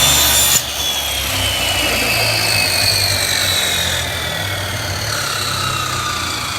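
Electric woodworking saw running, its motor whine slowly falling in pitch; a louder, harsher stretch ends about half a second in.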